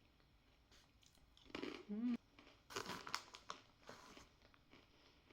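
Quiet crinkling of a plastic snack bag being handled, in short crackly clusters, with a brief hum about two seconds in.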